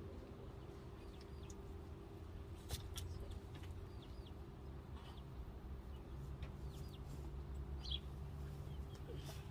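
Chickens clucking faintly, with short high chirps scattered through and a couple of sharp clicks, over a steady low hum.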